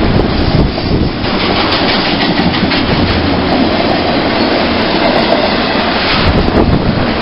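Train passing close by, its wheels clattering over the rails in a steady loud rush that sets in about a second in. Wind buffets the microphone at the start.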